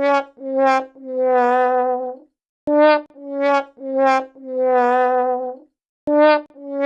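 Sad trombone comic sound effect: a trombone playing the 'wah-wah-wah-waaah' figure of four notes stepping down in pitch, the last held longest, repeated about every three and a half seconds.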